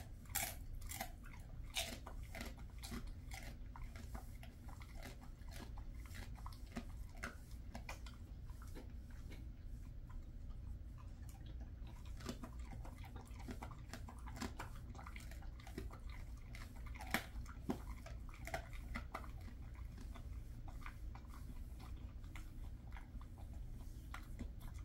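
Jindo dog chewing a hard dried treat: a long run of irregular crunches and clicks from his teeth.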